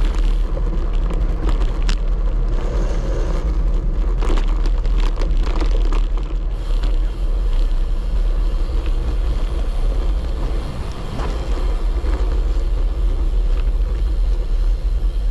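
Wind buffeting a bicycle's handlebar-mounted camera microphone during riding, with tyre rumble from the path surface and a few short knocks from bumps in the first half.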